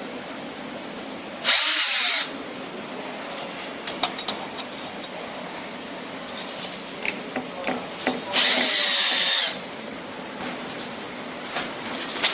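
Power drill boring holes into a PVC window head: two runs, a short one and then a longer one of about a second, with light knocks of handling between them.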